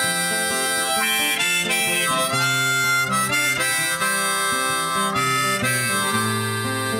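Background music: an instrumental break in a pop song, a melody changing notes over a steady bass line, with no singing.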